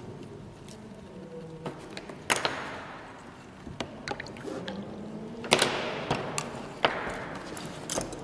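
New synthetic watercolour brushes being dipped and swished in water to wet them: two splashy swishes about three seconds apart, with light clicks and taps of brush handles in between.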